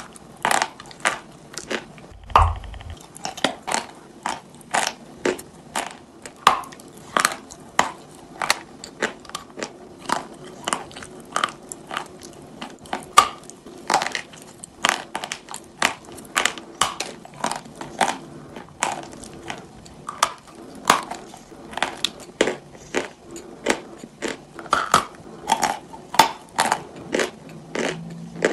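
Lumps of chalk coated in thick wet paste being bitten and chewed close to the microphone: a steady run of sharp crunches, about two a second. A brief dull thump about two seconds in.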